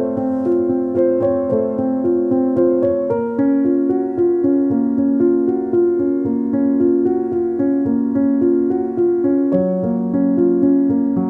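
Background music: a keyboard playing a flowing run of short repeated notes, with the harmony shifting twice.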